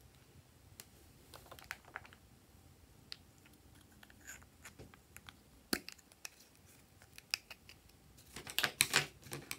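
Small plastic clicks and taps from handling toy lipstick and crayon-shaped plastic tubes, with a quick run of louder clicks near the end as a lipstick tube is opened.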